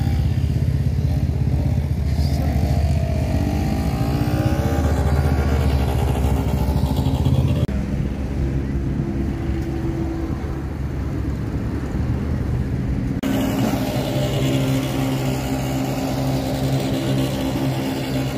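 Quad bike (ATV) engine running close by, its pitch rising and falling as it is revved in the first few seconds, then settling to a steadier idle. The sound shifts abruptly twice, about a third and two-thirds of the way through.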